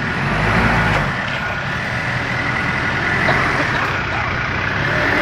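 4x4 pickup truck's engine running under load as it crawls through a muddy off-road rut, heaviest in the first second, with a steady high hiss over it.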